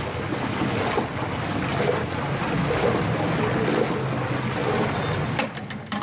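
Mango pulp poured in a stream from a steel jug into a large pot of milk and ice while a ladle stirs it: a steady splashing rush that falls away shortly before the end, with a few clicks after it.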